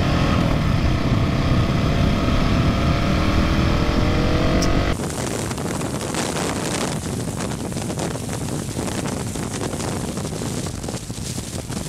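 Husqvarna 701 Supermoto's single-cylinder engine pulling and rising steadily in pitch as the bike accelerates, with heavy wind noise on the microphone. About five seconds in it cuts abruptly to quieter, steady wind and road rush from another motorcycle riding at speed.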